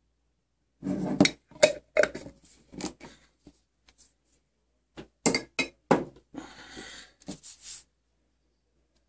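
Glass jar of paint stripper being handled and tipped out: a series of clinks and knocks as the small metal model car body comes out against the glass and onto the work mat, in two bunches, about a second in and about five seconds in.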